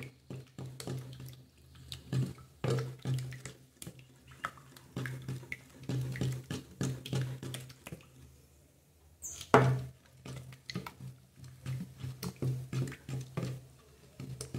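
Wooden spoon stirring a homemade detergent mixture in a plastic tub, with irregular scraping and knocking against the tub's sides and one louder knock about nine and a half seconds in. A steady low hum runs underneath.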